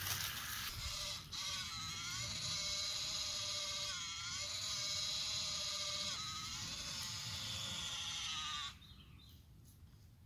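Toy RC rock crawler truck's electric drive motors and gearbox whining as it drives, the pitch dipping and rising three times as it slows and speeds up, then cutting off sharply near the end when the truck stops.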